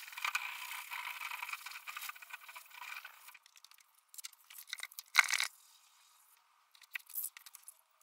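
Hand wet-sanding of a two-pack painted car bonnet with abrasive paper, flatting back the bubbled paint. Steady rubbing for about three seconds, then scattered short scrapes and one brief louder rasp about five seconds in.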